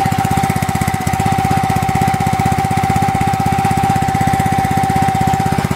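Small single-cylinder four-stroke petrol engine running steadily on white spirit instead of petrol, an even rapid firing beat with a steady high whine over it.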